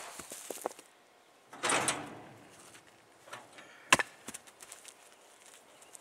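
Rocks tossed by hand onto a pile of rocks, one landing with a sharp clack about four seconds in, followed by a few smaller knocks. A longer scraping rush comes about a second and a half in.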